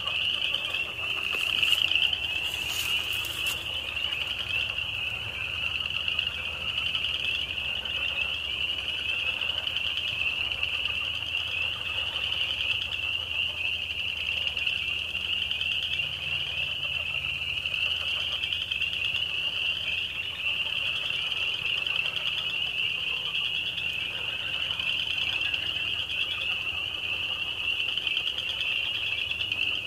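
A dense chorus of frogs calling, their high peeping calls merging into one steady, shrill, pulsing drone. A few brief clicks sound about two to three seconds in, over a faint low hum.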